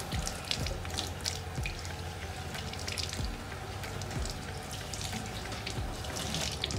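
Kitchen tap running over a gutted queenfish held in the hands, the water splashing unevenly into a stainless steel sink as the fish is rinsed.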